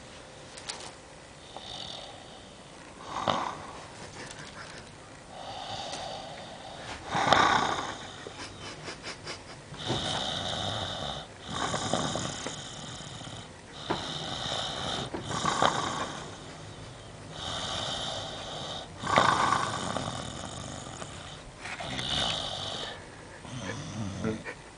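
A man snoring heavily in his sleep, a rasping snore on roughly every breath, every second or two, some much louder than others. About eight seconds in, one breath breaks into a fast fluttering rattle.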